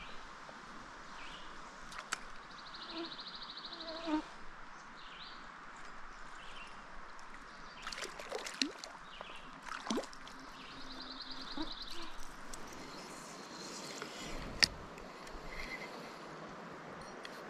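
Steady rush of a small trout stream's flowing water. A high, rapid trill comes twice, a few seconds in and again about eight seconds later, among scattered faint chirps and clicks.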